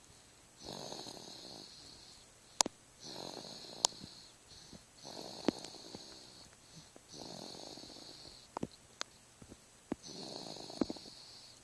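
A five-month-old baby snoring in sleep, one noisy breath about every two seconds. Several short sharp clicks fall between the breaths and are the loudest sounds.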